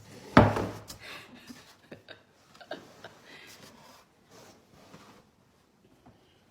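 A sudden loud sound about half a second in, then light rustling and small knocks of items being handled. These fade to near quiet.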